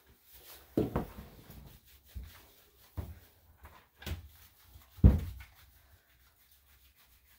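Bernedoodle puppy being shampooed in a bathtub: hands scrubbing lathered wet fur, with several irregular dull bumps, the loudest about five seconds in.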